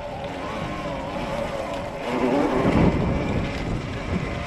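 72-volt Rawrr Mantis electric dirt bike riding along a dirt trail: wind rushing over the microphone and tyres rumbling over dirt and leaves, louder for a moment about two seconds in.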